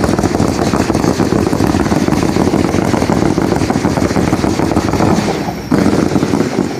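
Fireworks spraying sparks: a loud, dense, continuous crackling rush. It sags briefly about five seconds in, picks up again, then falls away at the end.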